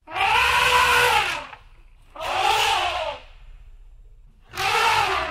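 Elephant trumpeting: three harsh, high calls, each rising and then falling in pitch. The first is the longest, and the other two come about a second and a half apart.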